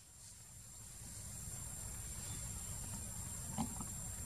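Steady outdoor background: a low rumble and hiss under a thin, steady high-pitched whine, with one faint short sound about three and a half seconds in.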